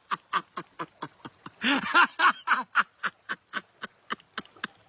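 A person laughing hard in quick, even bursts of about four or five a second. The bursts are loudest about two seconds in and thin out toward the end.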